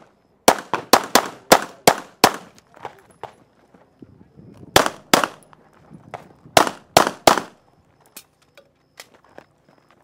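Semi-automatic pistol firing rapid strings of shots during a timed IDPA stage: about seven quick shots in the first two seconds, then three near the middle and three more a couple of seconds later, with fainter ticks between and after.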